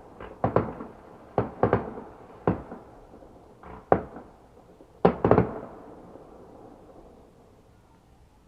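Fireworks going off: about ten sharp bangs at irregular intervals, each with a short echoing tail. A quick cluster of three comes about five seconds in, then the sound dies away.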